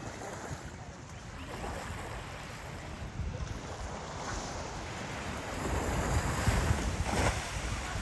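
Sea waves breaking and washing up the shore, with wind rumbling on the microphone; the surf swells louder a little past halfway through.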